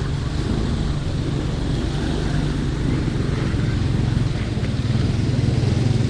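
Motor vehicle engine running with a steady low drone, a little louder in the last second or so.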